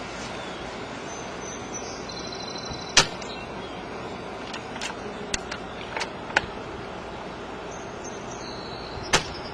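Spring-powered bolt-action airsoft sniper rifle, a Mauser SR Pro Tactical, fired twice: a sharp crack about three seconds in and another near the end. Between the shots come a few lighter clicks of the bolt being worked to re-cock it, over a steady background hum.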